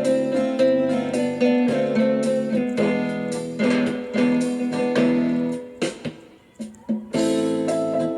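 Background music led by plucked guitar with a steady rhythm, which briefly falls away about six seconds in and then picks up again.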